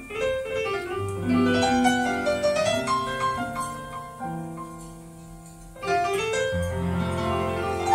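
Piano music: notes and chords struck and left to ring, dying down in the middle and coming back loudly about six seconds in.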